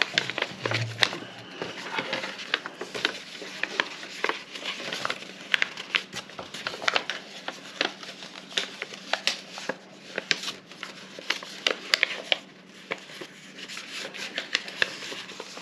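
Paper being folded by hand into alternating mountain and valley folds, making a run of short crinkles and crisp taps.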